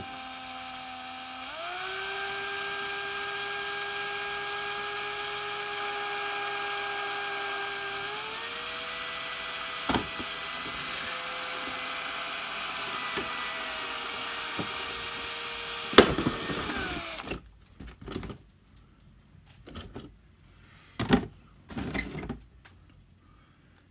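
Power drill boring a hole through a plastic RC car body shell: a steady motor whine that steps up in pitch twice, then stops about seventeen seconds in. A few light clicks and knocks follow.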